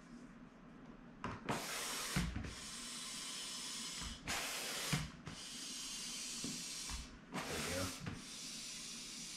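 Hand air pump pushing air through its hose into an inflatable kayak seat cushion: a steady rhythm of pump strokes, each a short loud rush of air followed by a longer, quieter hiss, about three cycles in all, with soft knocks between strokes.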